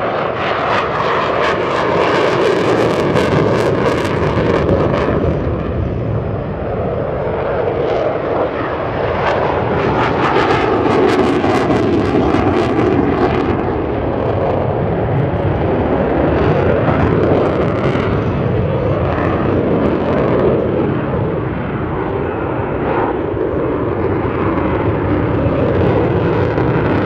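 Jet noise from Saab JAS 39 Gripen C fighters, each driven by a single Volvo RM12 afterburning turbofan, passing in their flying display. The noise is loud and steady, with a crackling edge in two stretches, a couple of seconds in and again around ten seconds in.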